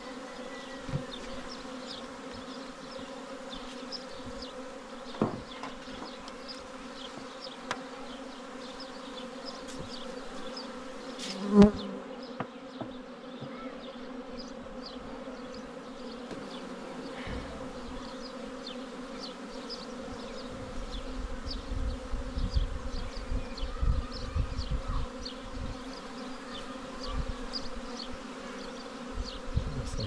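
Honeybees buzzing steadily in a steady hum at an open wooden beehive. A few sharp knocks sound as the hive is worked, with one loud knock about a third of the way in. A low rumble joins in the second half.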